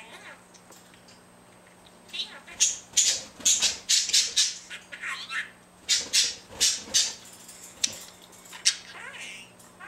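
Budgerigar chattering: a quick run of sharp chirps, squawks and squeaky warbles, starting about two seconds in after a quiet start.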